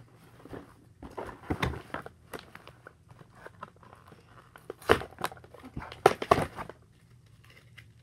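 Plastic toy packaging crinkling and tearing in irregular bursts as a doll is pulled out of its wrapping, loudest about five and six seconds in.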